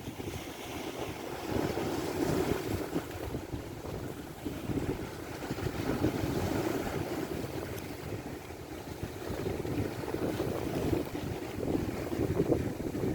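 Strong wind buffeting the microphone in gusts, a low rumbling rush that swells and eases every few seconds, with the wash of waves around a boat.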